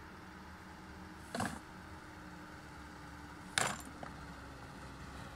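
Black plastic rubbish bag rustling twice in short crinkling bursts as litter is dropped into it, the second louder, over a low steady background hum.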